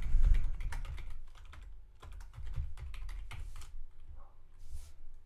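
Typing on a computer keyboard: a run of quick keystrokes, with a brief pause about two seconds in.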